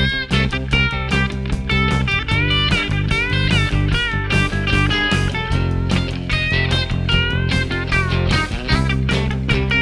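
Background music: a country-rock song's instrumental break, with an electric guitar playing bending lead lines over bass and steady drums.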